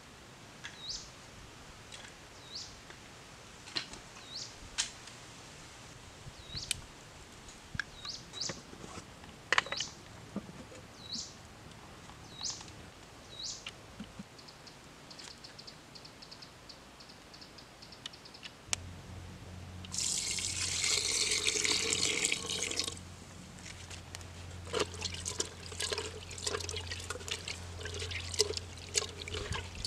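A hand swishing and splashing in water inside a clay pot, washing frogs, with a loud stretch of rushing, splashing water a little past the middle. Earlier, a short rising chirp repeats about once a second over light tapping and rustling.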